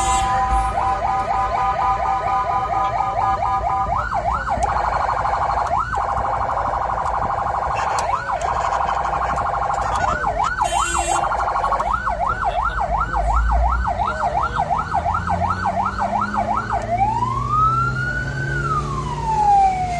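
Ambulance siren heard from inside the cab, cycling in a fast warble of about four pitch sweeps a second. Near the end it changes to a slow wail that rises and falls.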